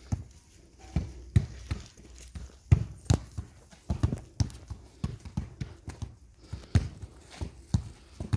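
Footsteps on a dirt path, heard close: uneven thuds, about two a second.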